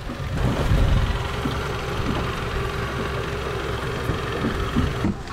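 A boat's engine idling: a steady low rumble with a faint steady hum.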